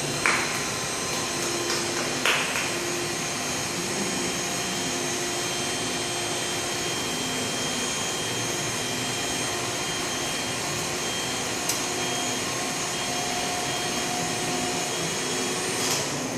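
Electric mixer running steadily, whipping a tiramisu cream mixture, with a few short knocks, likely the beaters against the bowl, about a quarter second in, at about two seconds and near the middle.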